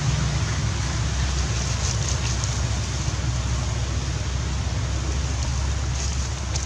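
Steady outdoor background noise: a low rumble with an even hiss over it.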